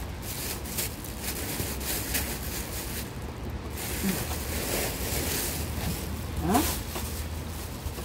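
Heavy rain pattering and dripping irregularly on an overhead roof, over a steady low rumble of wind. A short rising vocal sound comes about six and a half seconds in.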